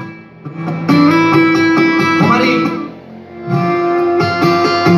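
Guitar music from a radio station playing through a Mondial portable speaker box. Its loudness drops twice, about half a second in and around three seconds in.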